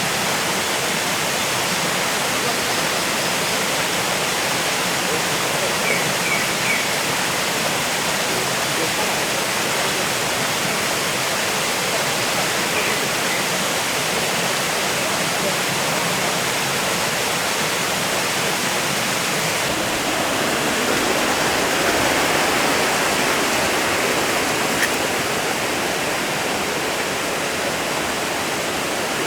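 Rushing water of a mountain valley stream running high after rain: a steady, loud rush that swells a little about two-thirds of the way through.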